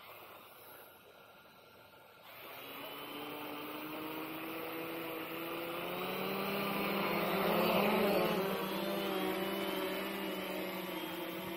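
Electric motors and propellers of a Mini Talon VTOL model plane spinning up about two seconds in, a steady hum of several pitches at once. It grows louder through the vertical takeoff, is loudest about eight seconds in, then eases slightly as the plane climbs away.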